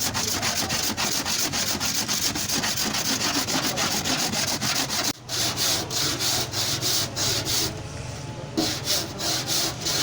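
Quick back-and-forth sanding or rubbing on a car body panel during dent repair, about five hissing strokes a second over a low steady hum. The strokes break off briefly about halfway, ease off for about a second near the end, then start again.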